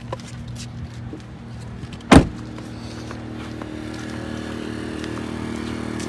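Portable generator's engine running steadily, a low even hum that grows a little louder over the last few seconds. A single loud thump about two seconds in.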